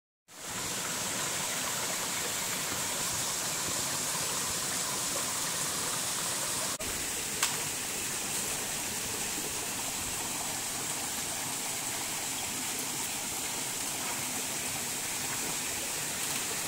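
Small mountain stream running over rocks: a steady rushing of water, with a single short click about seven and a half seconds in.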